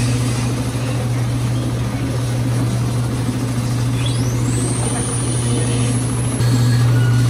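Mold-A-Matic vending machine running its cycle to mold a plastic Frankenstein figure: a steady loud low hum, with a high whine that rises sharply about four seconds in and holds, and the hum growing louder near the end.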